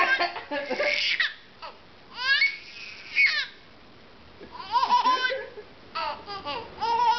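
Infant laughing in several short bursts of high, squealing laughter with pauses between: a cluster at the start, two single squeals a second apart, then more laughing near the end.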